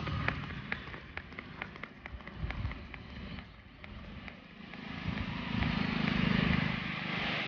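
Horse's hooves clopping on asphalt, fading as it moves away, then a car driving past, loudest about six seconds in. The sound cuts off abruptly at the end.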